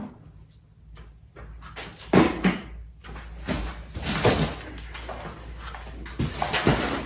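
Cardboard box and packaging being handled and moved: irregular rustling and scraping with a few knocks, loudest about two seconds in and again near the end.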